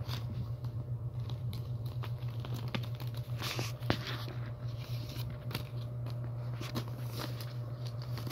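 Plastic and paper wrappers of small blind-bag packets crinkling and rustling as they are handled on a table, with scattered light taps, over a steady low hum.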